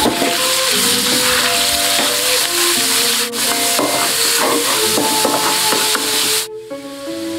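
Minced pork sizzling in hot oil in a wok while a wooden spatula stirs and scrapes it, with background music underneath. The sizzle cuts off suddenly about six and a half seconds in, leaving only the music.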